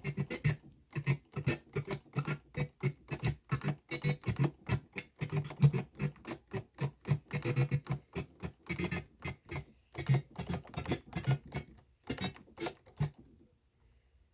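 DJ scratch cutting on a Pioneer DDJ-1000 controller's Magvel crossfader: a track chopped into short stuttering bursts, about three a second, by quick fader cuts. The cutting stops about a second before the end.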